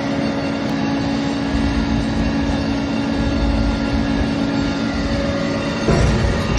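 Steady mechanical running noise of a vehicle, with a low, even hum over it. About six seconds in the hum drops out and the noise gets a little louder.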